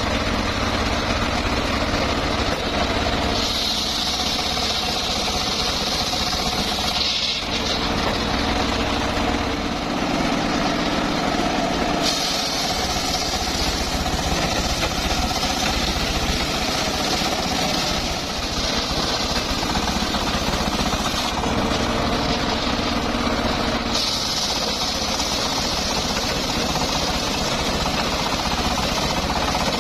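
Homemade engine-driven circular sawmill running steadily, with a higher, brighter cutting sound coming and going in stretches of several seconds as the blade rips through teak.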